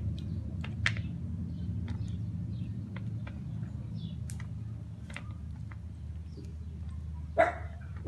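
Scattered small sharp clicks and brief high chirps from a small bird pecking dry dog food in a plastic bowl, over a low steady hum. A single short, louder dog yip comes about seven seconds in.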